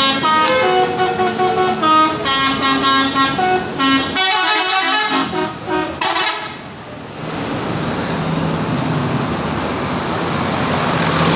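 Bus telolet musical horn playing a quick run of stepping notes for about four seconds, then a harsher horn blast lasting about two seconds. After that the bus engine runs on as a low steady hum with road noise.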